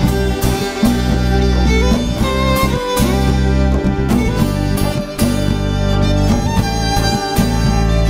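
Instrumental opening of a Jewish song: a violin melody over acoustic guitar and a steady bass line.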